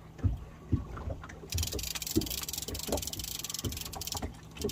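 Water slapping and knocking against the hull of a small anchored boat in irregular low thumps. From about a second and a half in, a fishing reel is wound in with a fast, fine clicking that stops near the end.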